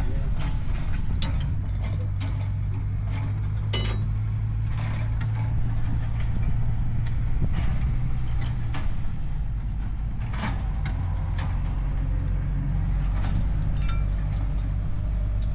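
An engine running steadily at a low pitch, with sharp metallic clicks and knocks scattered over it. The drone is strongest for the first half.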